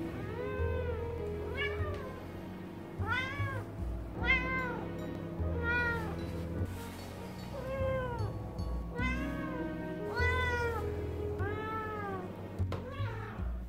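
Ragdoll cat meowing over and over, about ten meows in a row, each rising then falling in pitch, over background music.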